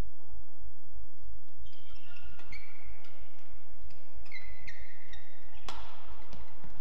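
Badminton rally: court shoes squeaking briefly and repeatedly on the court mat, with sharp racket strikes on the shuttlecock in between, the loudest strike coming near the end.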